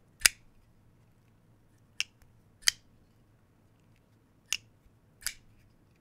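Titanium framelock folding knife (Getgoodscrew Neutron Star) on ceramic bearings, its blade flicked open and shut. It gives five sharp, thwacking snaps a second or so apart.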